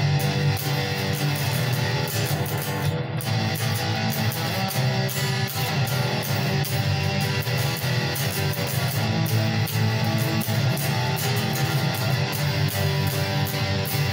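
Single-cutaway electric guitar with two humbucking pickups, played with a pick: a continuous run of picked notes and strummed chords.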